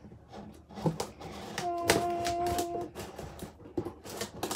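Scissors cutting through packing tape on a cardboard box: a run of sharp snips, clicks and crackles, with a steady squeak lasting about a second in the middle.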